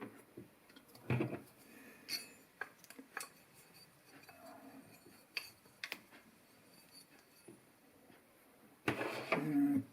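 Scattered light clicks, clinks and taps of a replacement refrigerator fan motor and its small parts being handled and fitted into place.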